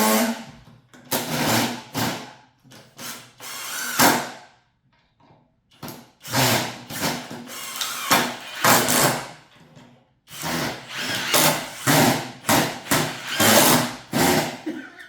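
Cordless impact drivers driving screws into wood in stop-start bursts of hammering, with short breaks about five and ten seconds in.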